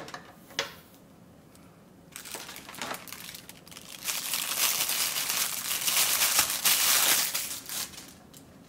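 Thin HDPE plastic bag crinkling as it is handled and peeled off a small charger, growing louder about halfway through and stopping shortly before the end. Two light knocks come just before the crinkling starts.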